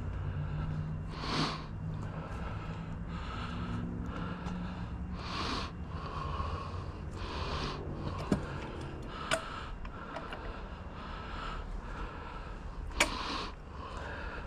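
A person breathing heavily close to the microphone, a puff every second or two, with a few sharp clicks and knocks of handling and a steady low rumble underneath.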